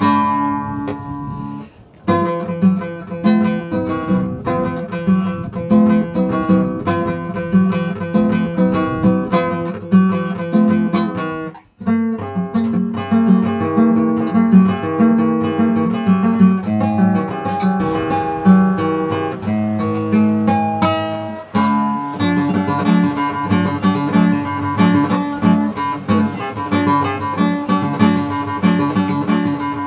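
Background music played on classical guitar: plucked notes and chords, with two brief breaks, about 2 seconds in and near the middle.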